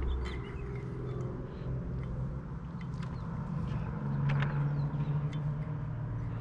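A vehicle engine running steadily as a low hum, swelling for about a second a little past the middle, with a few faint light clicks.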